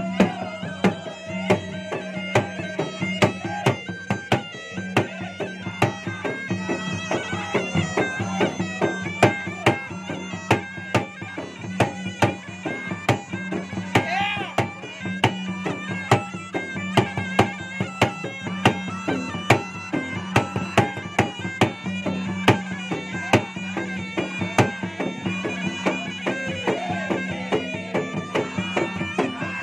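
Makassar gendang, double-headed barrel drums, beaten in a fast, dense rhythm with a curved stick and the bare hand, under a nasal, wavering melody from a puik-puik double-reed pipe, with a steady low drone beneath.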